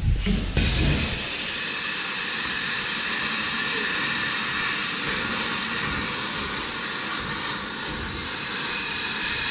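A loud, steady hiss from a high-pressure jet. It starts abruptly about half a second in and holds without a break.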